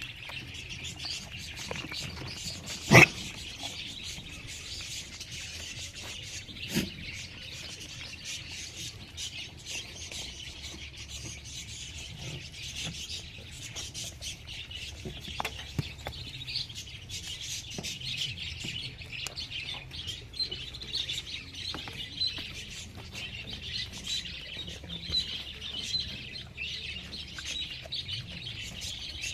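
Small birds chirping steadily in the background, with a sharp knock about three seconds in, a smaller knock near seven seconds, and scattered light clicks.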